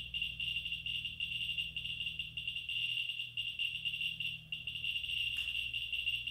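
Ludlum survey meter's speaker clicking once for each radiation count from a Ludlum 44-9 Geiger-Müller probe. The clicks come so fast they run together into a high-pitched chatter as a small piece of uranium ore is slid toward the probe.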